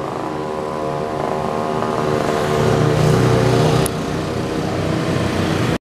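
Road traffic passing close by: vehicle engines, mostly motorcycles, running steadily and getting louder from about two seconds in, easing shortly before the end.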